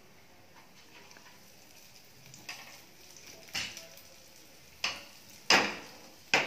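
Cumin seeds sizzling faintly in hot peanut oil. From about two and a half seconds in, sharp pops start, about five in all and louder toward the end, as the seeds begin to crackle.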